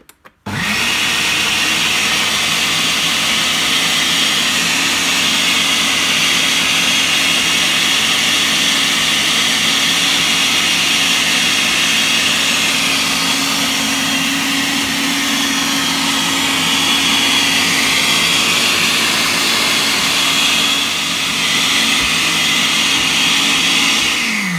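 Countertop blender motor running at a steady speed, grinding cauliflower, potato, onion and boiled chickpeas in a little water into a paste. It starts about half a second in and winds down with a falling whine at the very end.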